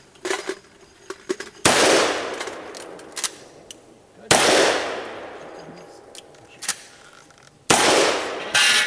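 Four loud gunshots from a cowboy action shooting stage, each with a long echoing tail. The first two come a few seconds apart, and the last two follow each other quickly near the end.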